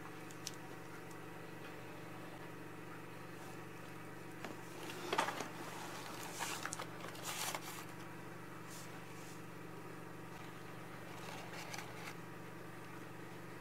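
Steady low electrical hum of room tone, with a few brief rustles of something being handled about five to seven and a half seconds in.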